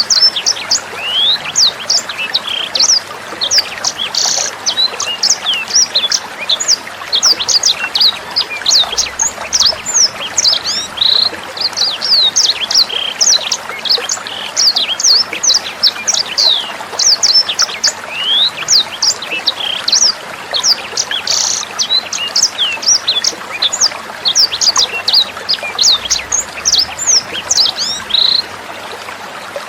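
A sanger songbird singing a fast, unbroken run of sharp high chirps and whistles, a master-song recording for tutoring caged songbirds, over a steady trickle of running water.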